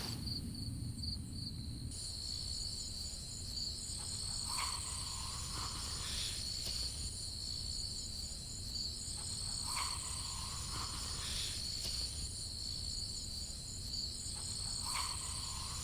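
Night chorus of crickets: steady, high-pitched trilling, some of it pulsing. A short, lower call repeats three times, about five seconds apart.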